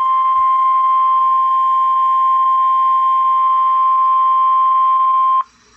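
NOAA Weather Radio warning alarm tone: one loud, steady high tone at about 1,050 Hz, heard through a weather radio receiver, that cuts off sharply about five and a half seconds in. It is the alert signal that opens a severe thunderstorm watch statement.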